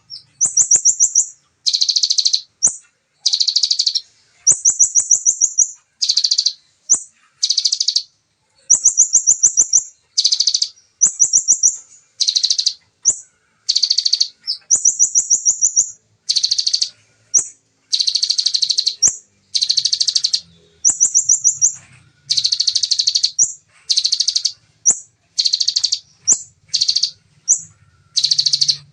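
A caged kolibri ninja (sunbird) sings rapid, densely packed trilled bursts in the ciblek style, the 'shots' prized by bird keepers. The bursts come about once a second with short gaps, some fuller and some thin, very fast high trills.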